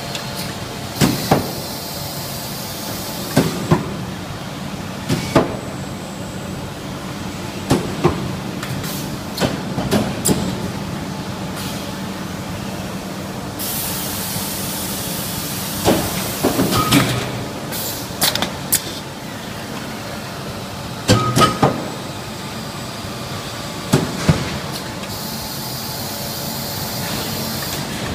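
Automated sheet-metal panel forming line for chest freezer side panels running: a steady machine hum with repeated sharp metallic clanks and knocks as the pneumatic grippers and bending unit handle the steel panels, and three longer hisses of compressed air, one near the start, one about halfway and one near the end.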